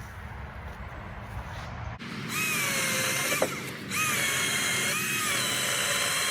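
Milwaukee Fuel battery chainsaw's electric motor whining at speed. It starts about two seconds in after a low rumble, and its pitch sags briefly a couple of times as the chain loads up in the wood.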